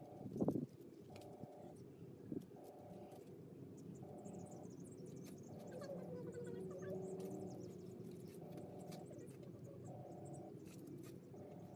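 A repeating electronic tone, one short pulse about every one and a half seconds, over faint bird chirps, with a brief bump about half a second in.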